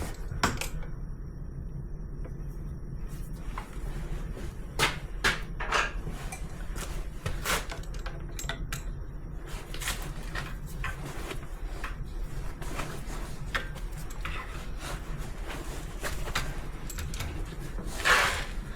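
Irregular metallic clicks and knocks of a tool working a nut on compressor fittings held in a leg vise, over a steady low hum. A louder scraping clatter near the end, as the nut rounds off under the tool.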